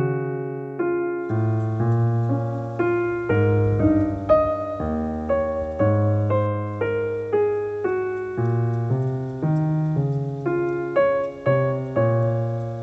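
Background piano music: a gentle melody of struck notes, each fading away, over low bass notes, moving at about two notes a second.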